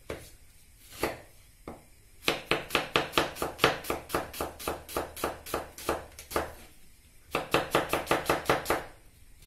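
Chef's knife slicing an onion on a wooden cutting board: two separate cuts, then a quick run of about five knife strokes a second against the board, a short pause, and a second quick run near the end.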